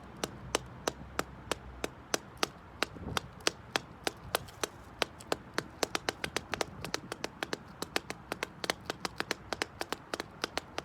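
Black slingback shoes tapping their toes on concrete: sharp, irregular clicks, a few a second at first, coming faster in the second half.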